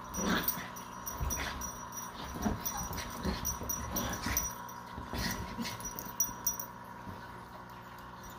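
Two small dogs playing rough on a couch: short whining dog noises and scuffling in quick, irregular bursts, thinning out over the last couple of seconds.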